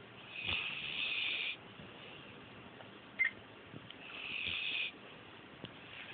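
A sleeping dog snoring: two high, hissing snores about three and a half seconds apart, each lasting about a second, from a dog that her owner says can't breathe well. A short sharp squeak comes about three seconds in, between the snores.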